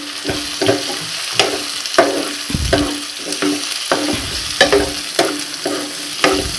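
Steel spoon stirring boiled mushrooms into fried onions in a non-stick frying pan, knocking and scraping against the pan every half second or so, each knock ringing briefly. Under it, the steady sizzle of the food frying in oil.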